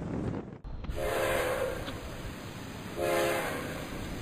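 Train horn blowing a steady multi-note chord, a blast starting about a second in and another about three seconds in, over a low rumble.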